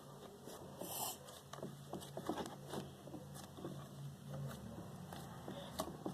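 Slime being kneaded and mixed by hand: many soft, irregular sticky clicks and squishes.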